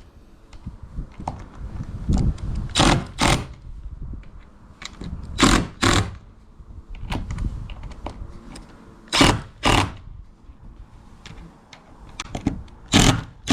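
Screws being driven through the Maxx Fan frame into the van's metal roof: short, loud, noisy bursts, mostly in pairs, every three to four seconds.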